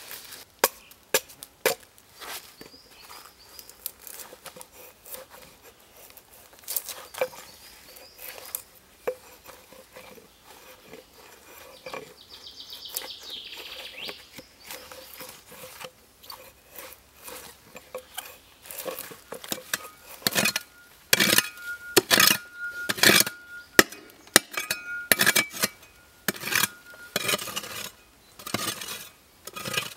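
A log being split into flat boards by hand, wood struck with a wooden stick: a series of sharp knocks and cracks, scattered at first and coming thick and loud in the last third, some with a short ringing tone.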